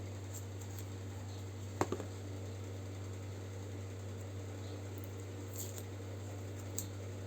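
Steady low electrical hum with light clicks and taps of a tempered glass screen protector and tape being handled on a tablet; the sharpest is a double click about two seconds in, with fainter ticks near the end.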